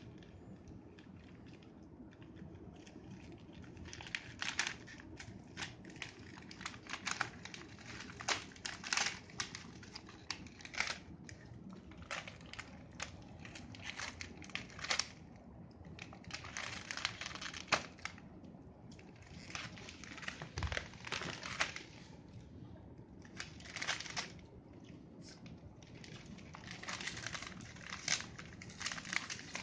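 Christmas wrapping paper crinkling and tearing in irregular bursts as a chihuahua noses and tugs at a wrapped gift, sparse for the first few seconds, then busier.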